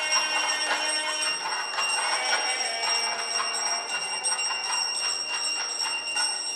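Bells ringing steadily, with many overlapping ringing tones held throughout and fresh strikes about twice a second.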